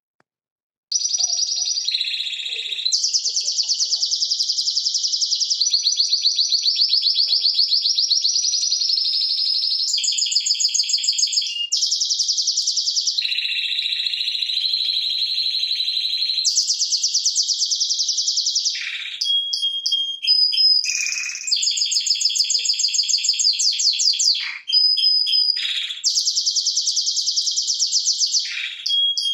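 Timbrado Español canary singing a long tutor song made of rapid rolling trills, switching to a new trill every second or two, with a few short held whistled notes in the second half. The song starts about a second in.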